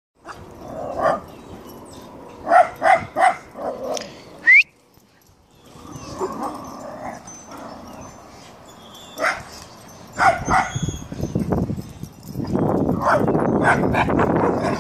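A dog barking in short, separate barks, with a quick run of three about two and a half seconds in and more near the middle, and a sharp rising yelp just before a brief lull. A louder rough noise fills the last couple of seconds.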